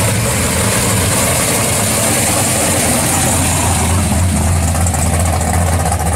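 First-generation Chevrolet Camaro SS V8 rolling past at low speed, its exhaust giving a steady, deep note with a choppy beat and no hard revving.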